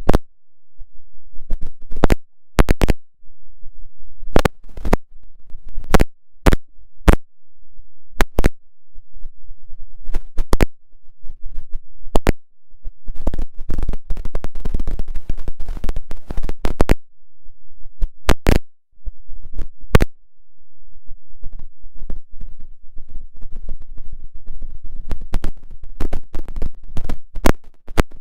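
A faulty, failed audio recording: loud, irregular sharp clicks and crackling, with short dropouts between and no usable sound.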